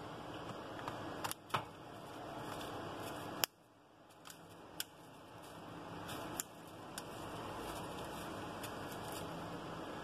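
Plastic housing of a Vivo Y19 smartphone being pressed together by hand, giving a handful of sharp clicks as its edges snap into place. The loudest click comes about three and a half seconds in, over a steady background hiss.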